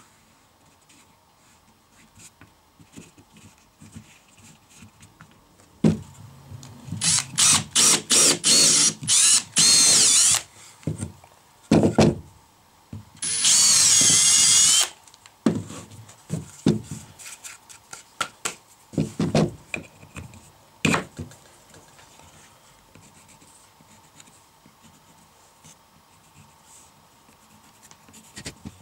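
Cordless drill boring into a block of MDF: a series of short high-pitched bursts on the trigger, then one longer run of about a second and a half. Scattered knocks of wood being handled on the bench come between and after.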